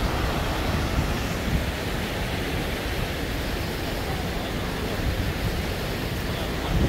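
Fountain jets splashing into a pool, a steady rush of falling water, with wind buffeting the microphone.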